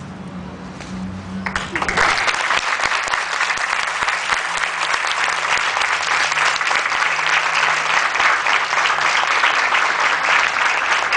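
Audience applause that breaks out about a second and a half in and keeps going steadily.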